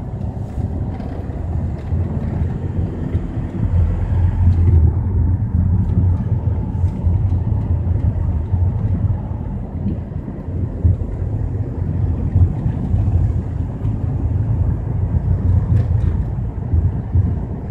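A car driving along a lane, heard from inside the cabin: the engine and the tyres on the road make a steady low rumble.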